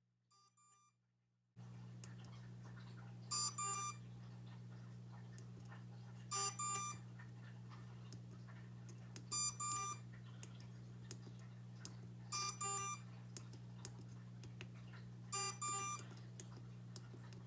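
Blade Torrent 110 quadcopter beeping its idle warning: a pair of short, high beeps about every three seconds, five times, a sign that the powered-up drone has been left sitting unflown for too long. A steady low hum sets in about a second and a half in and runs under the beeps.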